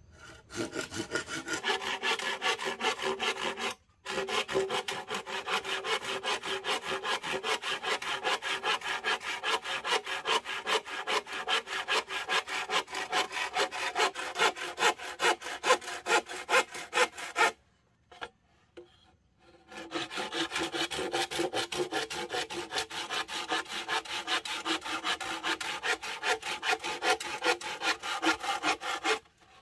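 Hand saw cutting wood in fast, even back-and-forth strokes. It pauses briefly about four seconds in and for about two seconds past the middle, then stops just before the end.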